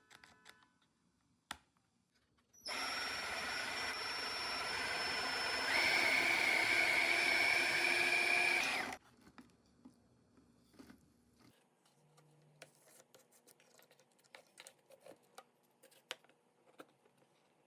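Homemade drill press's 18 V 775 DC motor running for about six seconds, growing louder with a higher whine about halfway through, then cutting off suddenly, followed by a few faint clicks.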